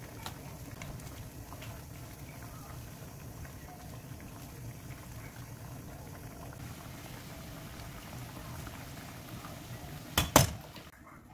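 Water at a rolling boil with glass noodles cooking in it, a steady bubbling hiss. Near the end come two sharp, loud knocks of metal tongs against the pan.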